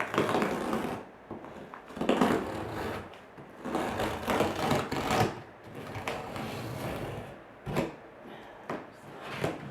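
Shipping packaging being torn open and handled: cardboard and wrapping ripping and rustling in several bursts of about a second each, with a short sharp knock near the end.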